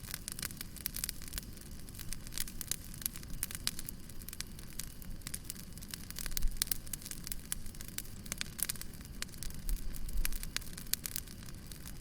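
Fireplace fire crackling and popping in quick, uneven snaps over a steady low rumble of flame, with a couple of louder low thumps about halfway through and near the end.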